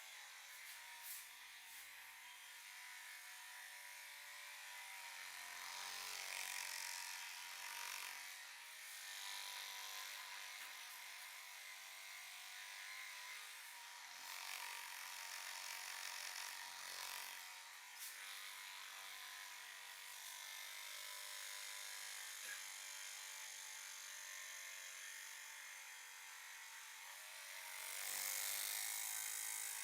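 Hands rubbing and working a scalp through the hair during a head massage: a soft rustling hiss that swells and fades, with a few faint clicks.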